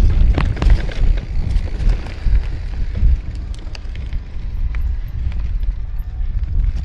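Mountain bike rolling down a rough trail: a loud low rumble of wind buffeting the camera microphone, with frequent knocks and rattles from the bike over the ground.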